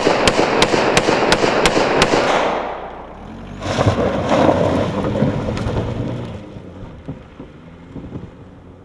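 A handgun fired about seven times in quick succession, roughly three shots a second, over the noise of a car. Then the car's engine revs and it drives off over the dirt, the sound fading toward the end.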